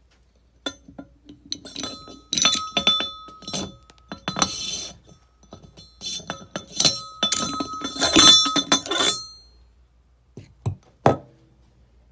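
Metal clinking, scraping and rattling as the lid knob of a Sorvall SLA-1500 centrifuge rotor is turned and the lid worked loose and lifted off, with a clear ringing from the struck metal. Two separate knocks follow near the end.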